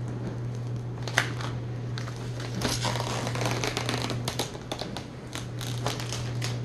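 Protective plastic film being peeled off a 3D printer's glass print bed, crackling and crinkling irregularly from about a second in, over a steady low hum.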